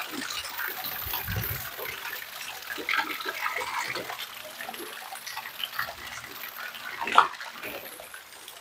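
Water splashing steadily, with scattered small knocks and a low thump about a second and a half in.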